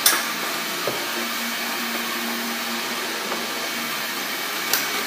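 Steady hiss with two sharp clicks, one at the start and one just before the end: the fuel-hose quick-connector being clicked onto the outboard motor's external-tank fuel fitting.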